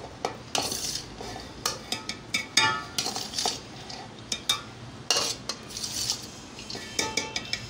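Irregular clinks, knocks and scrapes of a steel dish against a metal cooking pot as par-boiled rice is tipped out and spread in it for a biryani layer, a few strikes ringing briefly.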